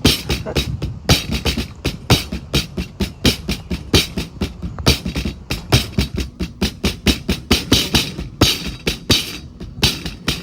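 Background music with a steady, fast beat of sharp percussive hits over a constant bass.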